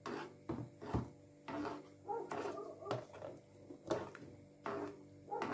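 Long metal spoon stirring tomato gravy in a saucepan, knocking and scraping against the pot in a run of short, irregular clinks.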